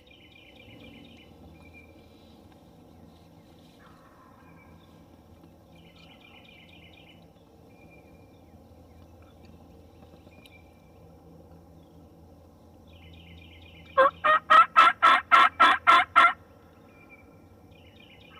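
A loud run of about ten evenly spaced turkey yelps, about four a second, starting about 14 seconds in and lasting a little over two seconds. Faint songbirds sing now and then over a low steady rumble.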